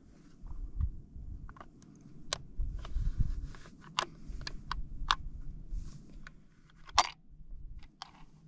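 Irregular sharp metallic clicks and clacks from hands working the action of a scoped rifle, with the loudest click near the end.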